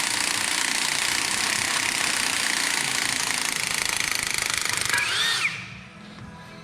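Impact wrench hammering steadily on an engine bolt, cutting off about five and a half seconds in. The bolt doesn't break loose and the tool is getting tired.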